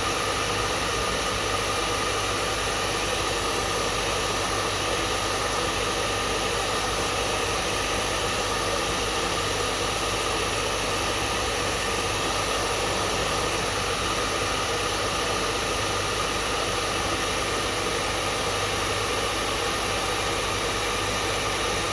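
Hair dryer running steadily, a constant rushing of air with a faint steady hum of its motor.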